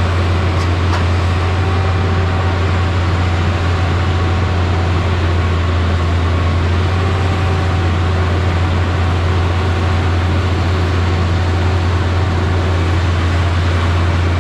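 Concrete boom pump truck's diesel engine running with a steady, unbroken drone.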